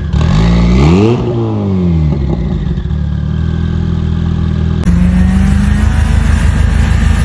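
A car engine revs up and drops back, then runs at a steady pitch. Near the end the sound cuts abruptly to a second car, a Subaru Impreza wagon, its engine running steadily.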